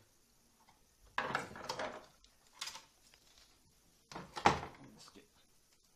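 The metal-framed LCD panel scraping and knocking against the monitor's plastic housing as it is handled, in two bouts about three seconds apart with a short knock between them; the second bout is the loudest.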